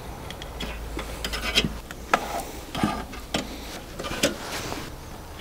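Metal skewers being slotted into an Onlyfire stainless steel multi-skewer rotisserie rack: a string of irregular light clicks with some scraping of metal on metal.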